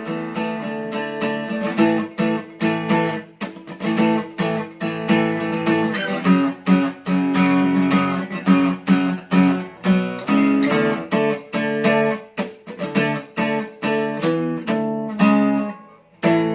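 SQOE Cranberries 41 acoustic guitar played unplugged: strummed chords in short rhythmic bursts, many damped off quickly, changing chord throughout and ending on one chord left to ring.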